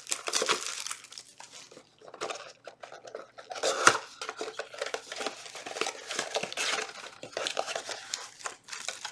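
A small cardboard trading-card box being torn open by hand and its contents handled: irregular tearing, crinkling and rustling, with one sharp tap about four seconds in.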